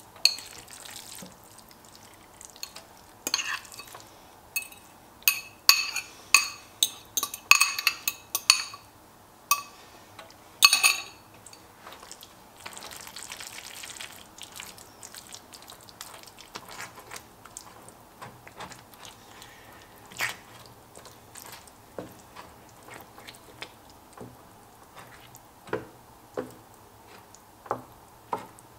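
A wooden spatula taps and scrapes a glass bowl to knock caramelized onions into the pan, giving a quick run of sharp, ringing clinks over the first ten seconds or so. After that, thick cheese sauce is stirred in an enameled cast iron pan with the spatula, with scattered light knocks.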